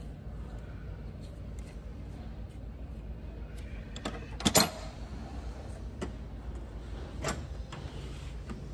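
Hand tools and a toolbox drawer being handled, giving a few scattered metal clicks and clanks over a steady low hum; the loudest is a sharp double clank about halfway through.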